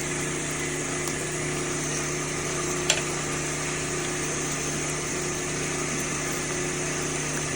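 A small electric motor running steadily with an even hum, and one sharp click about three seconds in.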